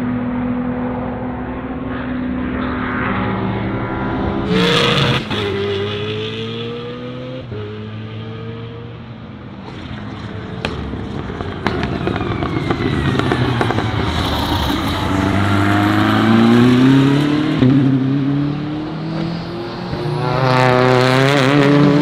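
BMW GT3 race car engines on track, rising and falling in pitch with gear changes. There is a sharp jump about five seconds in and a run of stepped rises under acceleration later on. A car passes close near the end.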